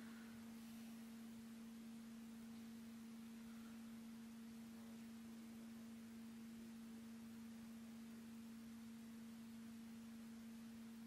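Near silence but for a faint, steady hum at one unchanging low pitch, with a fainter overtone above it.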